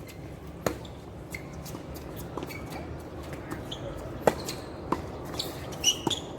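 Tennis ball being struck and bouncing on the court: a handful of sharp, irregularly spaced pops, the loudest about four seconds in, with a few short high squeaks near the end.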